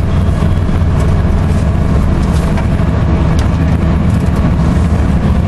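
Steady low drone of a passenger ferry's engines heard on board, with a constant rushing noise over it.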